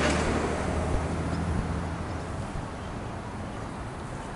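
A passing vehicle fading into the distance: its noise dies away steadily, and its low hum stops about two seconds in, leaving outdoor background noise.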